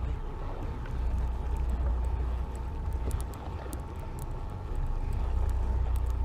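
Steady low rumble of a boat at sea, its idling engine mixed with wind on the microphone, under a faint steady hum, with a few light ticks around three to four seconds in.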